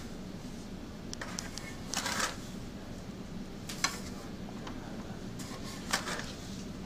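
Sand being poured into a bucket hung from a student model bridge, with a short rush about two seconds in and two sharp clicks later on.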